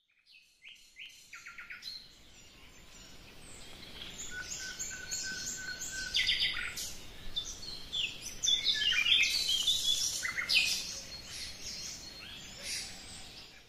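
Several birds chirping and singing, a busy mix of short high calls and whistled notes, fading in at the start and out near the end.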